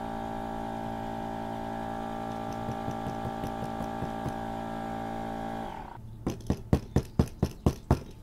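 Outdoor Master "Shark" 12-volt electric air pump running with a steady hum while a hand lightly taps the inflatable boat's tube; about six seconds in the pump's hum drops away. Then the hand slaps the firm, fully inflated tube about eight times in quick succession, about four a second.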